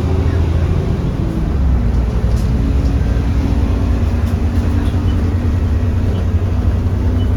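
Alexander Dennis Enviro400 double-decker bus under way, its diesel engine and driveline running as a steady low drone whose pitch shifts slightly as the revs change.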